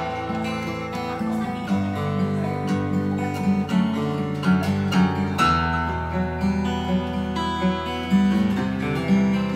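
Taylor 810ce dreadnought acoustic guitar played with the fingers: plucked chords ringing, with the bass note changing a few times.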